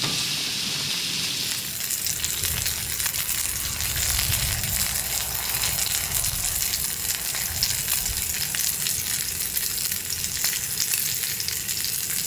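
Sauce-seasoned belly meat sizzling and crackling in a hot pan. It starts about a second and a half in, over a steady hiss, and keeps up a dense spitting crackle.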